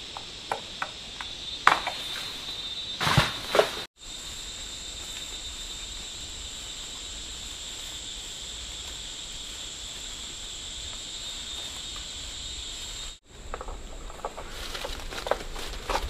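Insects buzzing in a steady high drone. Scattered clicks and knocks come in the first few seconds and again near the end, and the sound cuts out briefly twice.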